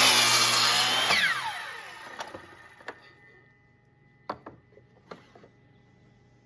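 Miter saw cutting through a walnut strip, then the blade winding down with a falling whine. A few light knocks follow.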